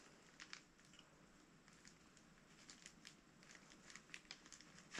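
Near silence with faint, scattered small clicks and a light rustle of plastic sheeting as a metal electrode bender tool is fitted and worked on an oil burner's pair of ignition electrodes.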